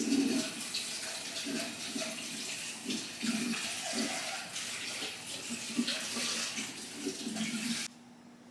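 Running water splashing and gurgling with small irregular clicks, cutting off abruptly near the end.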